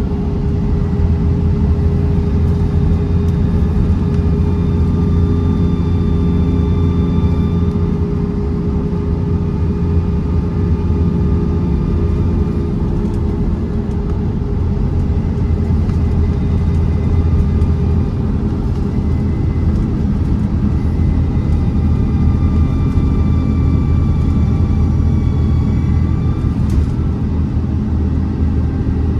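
Diesel engine of a 2006 Alexander Dennis Trident Enviro400 double-decker bus, heard from inside, running steadily under load at road speed. A faint high turbo whistle comes and goes twice.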